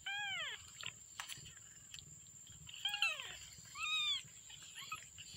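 Twelve-day-old kittens mewing: three short, high mews that each rise and fall in pitch, the first at the start and two more close together about three and four seconds in.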